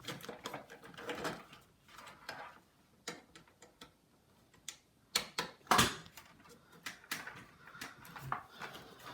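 Irregular clicks, taps and knocks of computer hardware being handled, louder about five to six seconds in.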